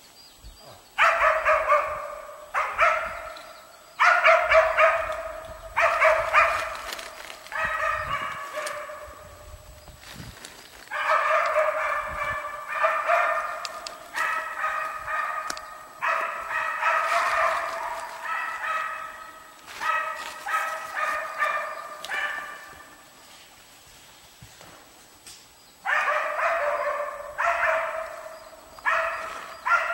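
West Siberian laikas barking at bay on a moose, in quick runs of several barks a second with short breaks between runs. The barking starts about a second in and stops for a few seconds near the end before starting again.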